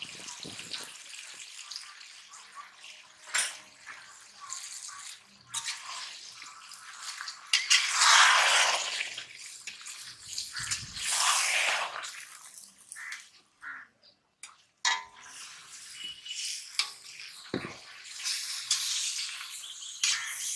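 Turkey pieces frying and sizzling in a large iron kadai, stirred with a long metal skimmer ladle that scrapes and clicks against the pan. The sizzle surges louder in two stretches near the middle.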